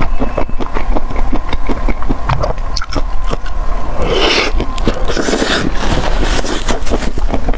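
Close-miked eating sounds: rapid wet clicks and crackles of chewing, with a louder noisy smacking or slurping patch about four seconds in, over a steady low hum.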